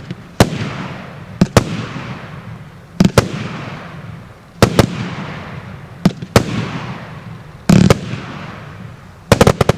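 A 49-shot, 1-inch consumer firework cake firing. Sharp bangs come mostly in pairs about every second and a half, each followed by a fading crackling hiss, with a quick cluster of bangs near the end.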